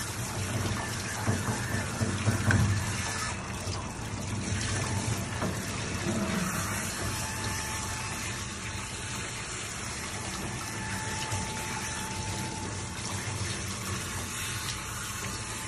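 Handheld spray nozzle running a steady stream of water over a wet dog's coat in a stainless steel grooming tub, rinsing the shampoo out. A few brief louder splashes come in the first few seconds.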